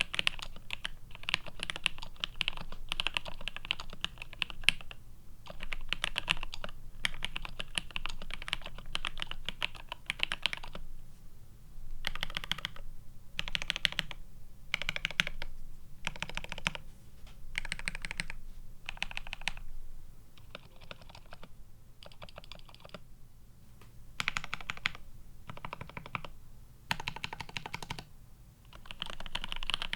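Typing on Alpaca V2 linear switches in a GRID 650 keyboard, plateless and PCB-mounted, with GMK keycaps: a steady clatter of keystrokes for about the first ten seconds, then shorter separate runs of key presses with brief pauses between them.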